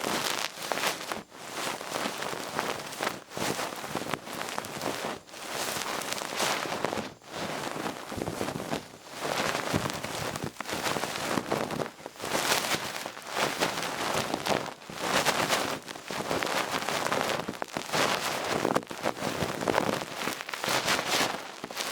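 Duck-feather ear-cleaning stick brushing and scraping in an ear, a dense crackly rustle in uneven strokes of about a second or two each.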